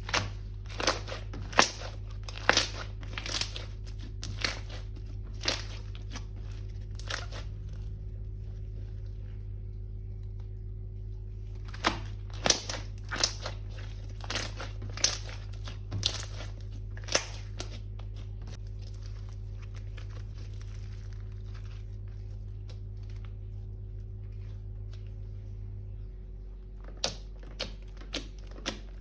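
Crunchy slime being squeezed and worked by hand, giving sharp crinkling, crackling clicks in irregular clusters with pauses between them. A steady low hum runs underneath.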